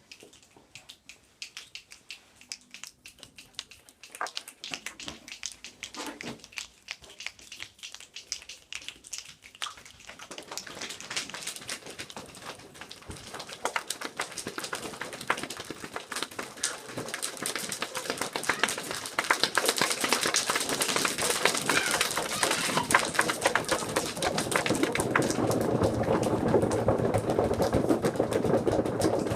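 A group of children making a rainstorm sound with their hands and bodies, no instruments: scattered taps and clicks at first, building steadily denser and louder into a continuous patter like heavy rain, fuller and heavier near the end.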